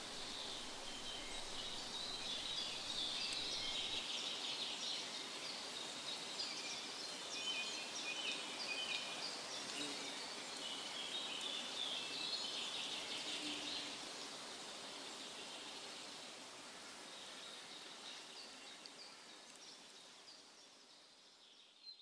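Forest ambience of several small birds chirping and singing over a steady hiss, fading out slowly over the last several seconds.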